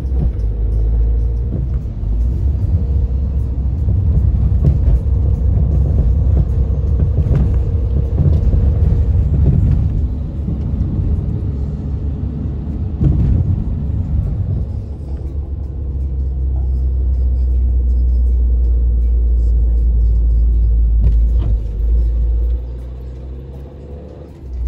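Car cabin noise while driving: steady low rumble of the engine and tyres on the road. It eases off near the end as the car slows down.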